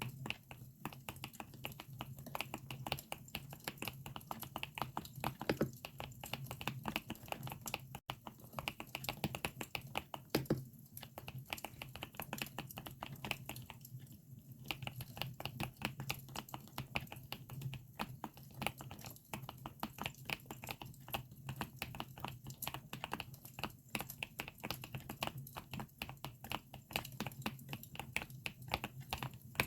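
Typing on a GMK67 mechanical keyboard with Akko Lavender switches: a fast, continuous run of key clicks that stops briefly about eleven and fourteen seconds in. A campfire crackles behind it.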